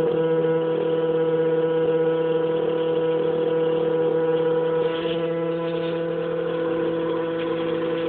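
Household water pipes humming with a steady drone of several held tones, still going with the hot tap turned off. It eases slightly about five seconds in.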